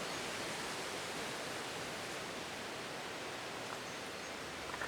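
Steady, even background hiss with no distinct event, only a faint tick or two near the end.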